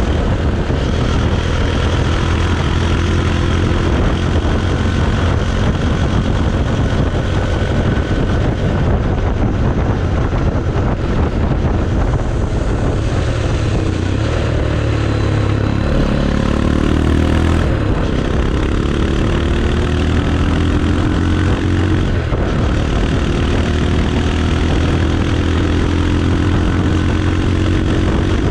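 Bajaj Pulsar 220's single-cylinder engine running, its exhaust note steady for most of the time, with the pitch rising and falling a little past the middle.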